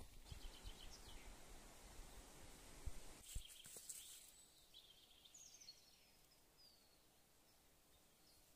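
Quiet river-bank ambience: a low rustle with two soft knocks in the first few seconds, then a few faint, short high bird chirps that glide in pitch.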